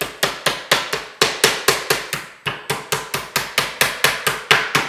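Meat cleaver pounding raw chicken breast tenders flat on a cutting board: a fast, even run of sharp whacks, about four or five a second, stopping near the end.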